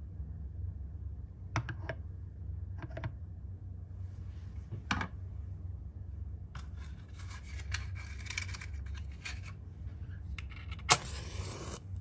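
A wooden match struck on its box near the end: a sharp scratch, then about a second of hiss as it flares. Before it, scattered small clicks and a stretch of rattling handling noise, over a steady low hum.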